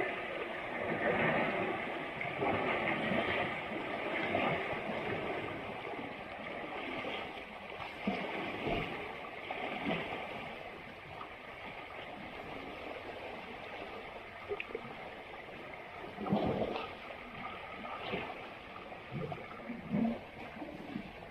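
Asian elephants wallowing in muddy river water: a steady sloshing and gurgling, broken by irregular louder splashes, one of the biggest about two-thirds of the way in.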